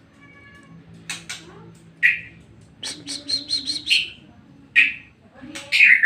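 White-rumped shama singing: a faint held whistle, then phrases of quick, sharp chirps and short whistles with brief pauses, louder again near the end.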